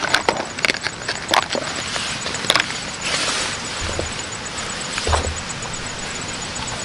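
Small clicks and taps of a flashlight's battery tube and cells being handled while the batteries are changed, with a brief rustle about three seconds in and two low thumps around four and five seconds in.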